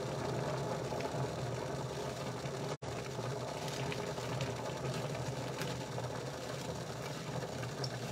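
Steady hum of a kitchen fan running over the stove, with a few light clinks of a utensil against the pan. The sound cuts out for an instant about three seconds in.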